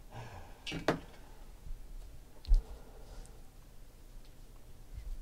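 A stack of trading cards being handled by hand: card stock sliding and flicking with a few sharp clicks in the first second, then one dull knock about two and a half seconds in and a softer one near the end.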